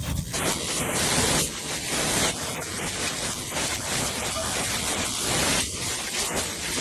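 Heavy hail and rain pelting down: a dense, steady hiss with scattered small hits, loudest in the first second or so.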